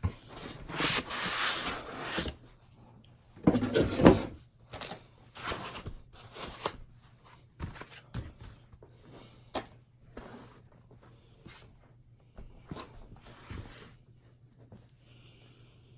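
Laptop box and packaging handled as the laptop is lifted out: rustling and sliding, loudest in the first four seconds, then scattered light knocks and clicks that thin out near the end.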